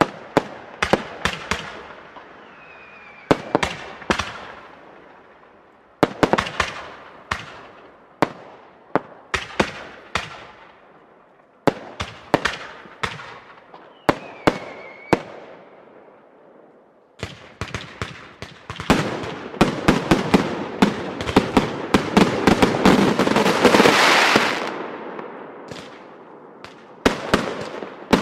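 Fireworks display: sharp bangs from aerial fireworks going off in quick groups every few seconds. About two-thirds of the way through they close up into a dense barrage of rapid bangs that builds to its loudest, then fades, and single bangs start again near the end.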